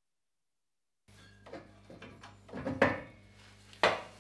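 Tubular steel exhaust header clunking and scraping against the cylinder head studs as it is worked off. There are a few sharp metallic knocks, the loudest near three and four seconds in, over a low steady hum; the sound starts about a second in.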